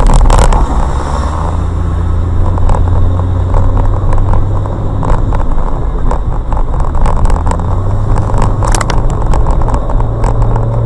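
Car in motion: a steady low engine and road drone with scattered knocks and clicks, louder clusters of knocks at the very start and about nine seconds in.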